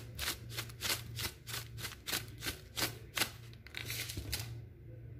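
A metal spoon clicking and scraping against a glass dish of minced chicken as salt is spread on it, about three to four quick strokes a second, stopping shortly before the end.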